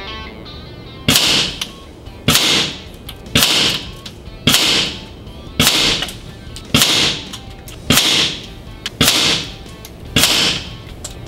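Benjamin Marauder Field and Target .22 PCP air rifle shots, cut together as a string of nine sharp reports evenly spaced about a second apart, each trailing off briefly.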